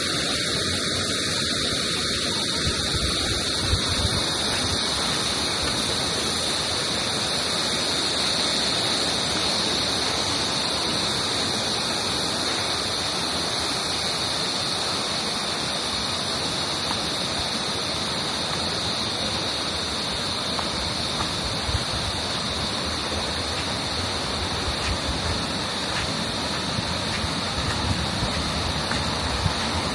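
Waterfall giving a steady, unbroken rush of falling water.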